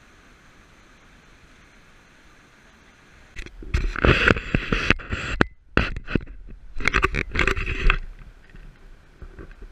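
Faint steady rush of river rapids, then, about three seconds in, water sloshing and splashing against a GoPro held at the water surface. The splashing comes in loud, irregular bursts, with a short cut-out in the middle.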